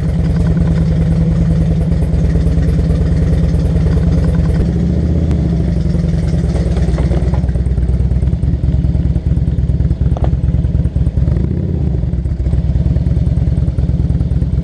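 Motorcycle engine running close to the microphone: a loud, steady, rapid low pulsing that shifts slightly about five seconds in.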